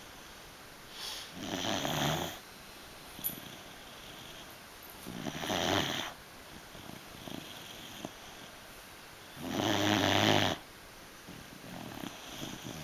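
Beagle snoring: three loud, rasping snores about four seconds apart, with softer breaths between.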